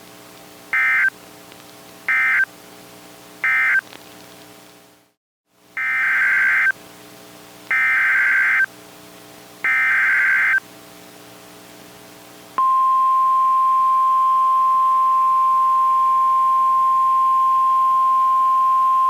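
Emergency Alert System SAME data bursts from a NOAA Weather Radio broadcast: three short bursts that mark the end of one message, a brief dropout, then three longer header bursts that open the next alert. About twelve and a half seconds in, the steady single-pitch weather-radio alert tone starts and holds, with a faint buzz under the quiet gaps.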